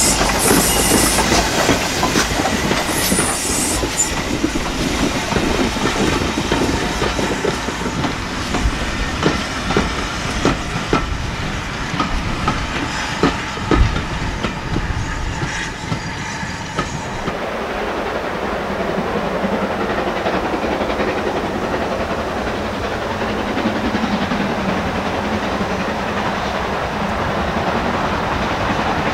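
Steam-hauled passenger coaches rolling past close by, their wheels clicking and knocking over rail joints and points, with one heavier knock about 14 seconds in. About 17 seconds in the sound changes abruptly to a steadier, more distant rumble of a steam train working along the line.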